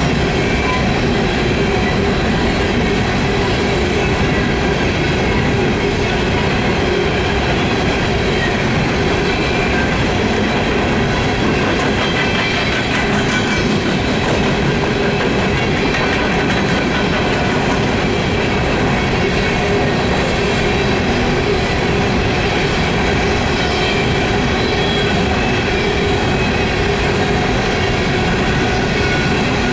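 Coal hopper cars of a freight train rolling past at close range: a steady, loud rumble of steel wheels on the rails, with steady high-pitched wheel squeal ringing over it.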